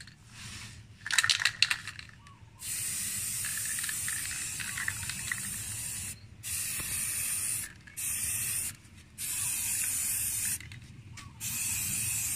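Aerosol can of chrome spray paint hissing in five bursts. The first burst lasts about three seconds and the rest about a second each, with a brief rattle before the first.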